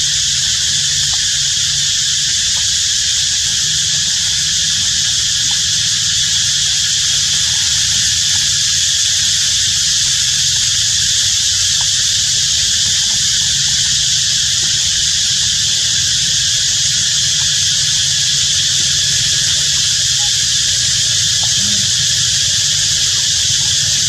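Steady, loud, high-pitched insect drone that goes on without a break, over a low rumble.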